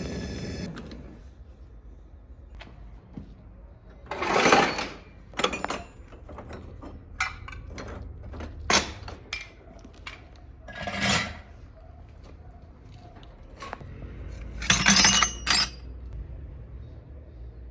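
Workshop handling sounds: scattered sharp metallic clinks and knocks, with several louder half-second scrapes, over a low steady hum.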